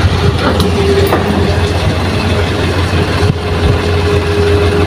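Hitachi hydraulic excavator's diesel engine running steadily with a low drone and a steady higher whine as it digs and loads soil, with a few faint knocks.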